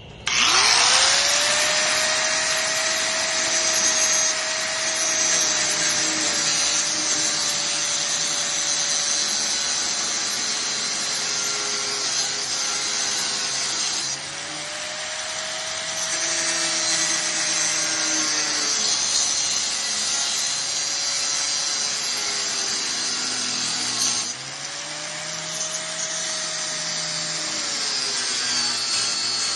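Electric angle grinder spinning up and cutting through a metal lock, a loud whine over a steady hiss. The motor's pitch sags slowly as the disc bites, and it speeds up again twice, about halfway through and near the end.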